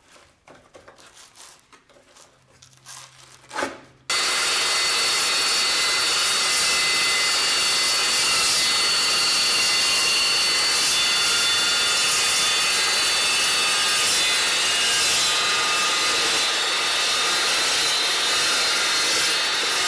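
Evolution S355CPSL 14-inch tungsten-carbide-tipped metal-cutting chop saw cutting a 45-degree mitre through heavy steel stock: a loud, steady cutting sound with a high whine, starting suddenly about four seconds in. Before it, only faint handling sounds.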